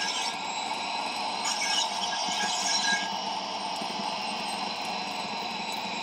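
DCC sound decoder in a KR Models OO gauge English Electric GT3 model playing its gas turbine sound through the model's small speaker: a steady turbine whine and rush. Two short hissing bursts come in, one right at the start and one from about one and a half to three seconds in.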